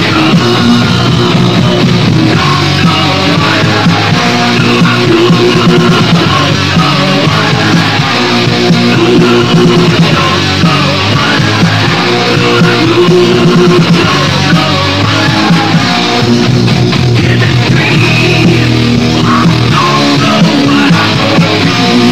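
Hard rock band playing loudly and steadily: electric guitar, bass and drums on a 1979 demo recording.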